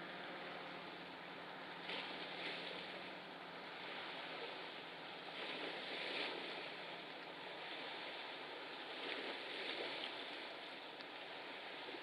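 Steady rushing outdoor noise of wind and water at the water's edge, swelling and easing every few seconds. No distinct engine note from the passing freighters stands out.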